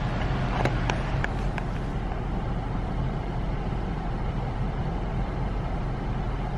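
Steady road and engine noise inside a moving car's cabin, with a few light clicks about a second in.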